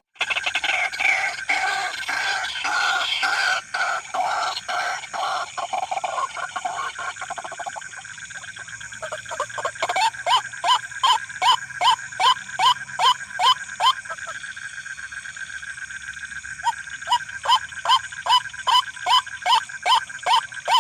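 White-breasted waterhen calling: a long run of repeated harsh call notes. They come thick and fast at first, then settle to about two a second, pause briefly past the middle and resume. A steady high tone runs underneath.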